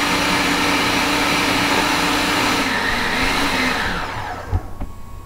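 Blender running, working a thick batch of basil pesto towards smooth. Its pitch dips briefly and recovers about three seconds in, then the motor winds down and stops about four seconds in, and a single knock follows.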